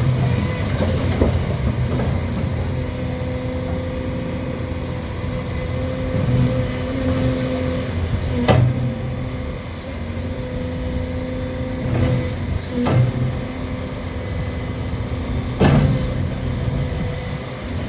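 Hyundai HX330L crawler excavator's diesel engine running steadily with a steady whine, broken by several sharp clunks spread through the stretch.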